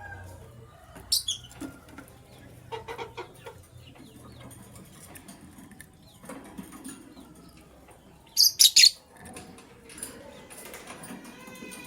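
Lovebirds chirping: sharp high-pitched calls, a pair about a second in, a quieter run near three seconds, and the loudest burst of three near the end, with rustling in between.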